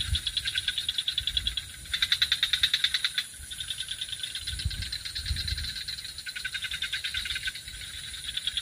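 A chorus of calling frogs: fast, even pulsing at about ten pulses a second, coming and going in bouts and loudest about two seconds in. A few low thumps sound around the middle.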